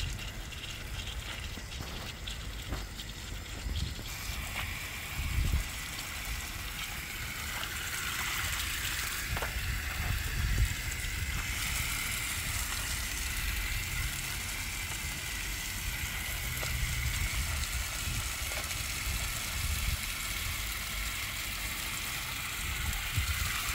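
Water running from an outdoor garden tap and splashing into a plastic bowl as green onions are rinsed by hand. The flow starts about four seconds in and then runs steadily.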